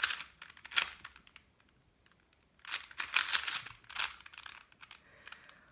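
Plastic 4x4 Rubik's cube being turned by hand, its layers clicking: a couple of single clicks, then a quick cluster of clicks about three seconds in.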